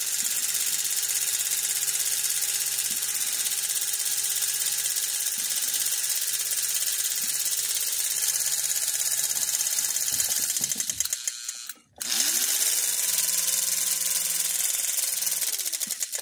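Lionel 671 steam locomotive's electric motor running on the bench with a steady whir and hum. About eleven seconds in the power drops out briefly, then the motor spins back up with a rising whine and runs steadily before winding down near the end.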